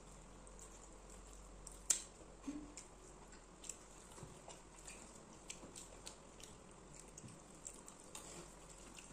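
Quiet eating sounds: soft chewing and mouth noises, with scattered small clicks and taps of a spoon and fingers against bowls and plates, the sharpest about two seconds in.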